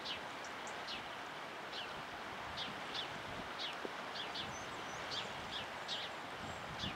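Birds calling outdoors: about a dozen short, high chirps that fall in pitch, coming irregularly over a steady hiss of wind and water.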